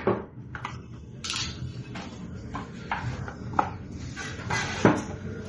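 Irregular clicks, taps and rustling from hands handling a smartphone's box and packaging, with two sharper knocks in the second half.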